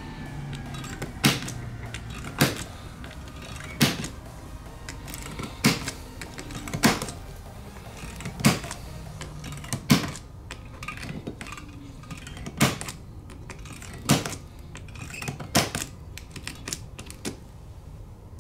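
Glass breaker pen snapping against the iPhone 12's back glass, a sharp click every second or so, about ten in all with some weaker ones between: the glass being cracked up so it comes off easily.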